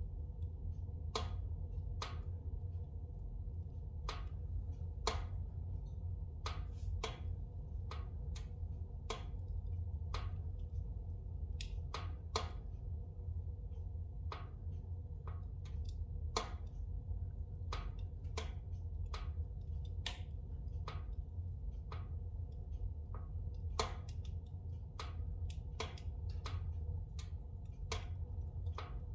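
Spruce logs burning in a fireplace, crackling with irregular sharp pops, about one or two a second, over a steady low rumble.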